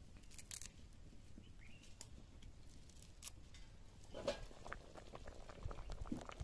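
Faint rustling and small snaps of fresh coriander leaves and stems being torn apart by hand. Near the end, a pot of fish curry bubbling at the boil.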